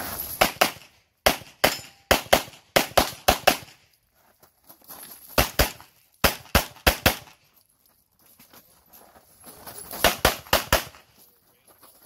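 Glock 34 Gen 5 9mm pistol fired in rapid strings: about two dozen sharp shots in clusters of two to seven, a few tenths of a second apart, with gaps of one to two seconds between clusters.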